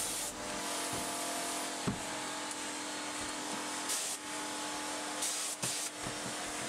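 Air-fed paint spray gun hissing as paint is sprayed onto a boat's engine, louder in brief spurts around four and five seconds in, over a faint steady hum.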